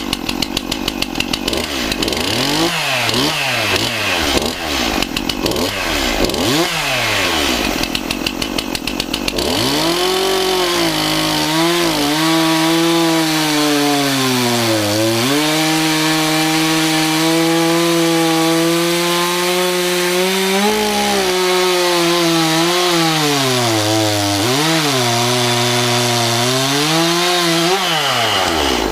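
STIHL MS241C two-stroke chainsaw revved up and down repeatedly for about nine seconds, then held at high throttle while cutting wood, the engine note sagging and recovering under the load of the cut.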